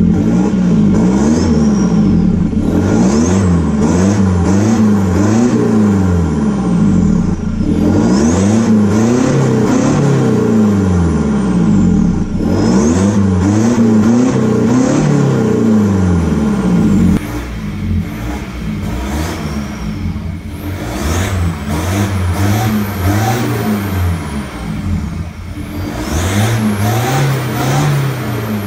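A 2019 Ford Ranger Raptor's 2.0-litre bi-turbo diesel four-cylinder with a turboback exhaust, revved again and again at a standstill, each rev climbing to about 3000 rpm and falling back to idle. The revs are heard first from inside the cab, then, quieter, from behind the truck at the exhaust, about halfway through.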